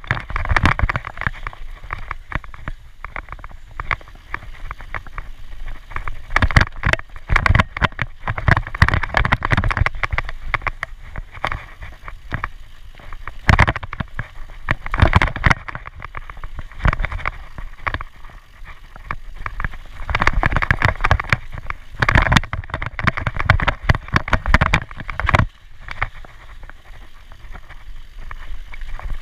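Mountain bike ridden fast down a dirt singletrack: tyres rumbling over the trail while the bike rattles and knocks continually over bumps and roots, with wind on the microphone.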